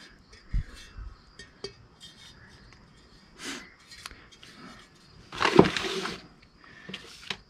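Handling noises from a chainsaw muffler being turned over in the hands, with a few light clicks and knocks. About five and a half seconds in comes a loud crinkle of plastic parts bags as the muffler is set down on them.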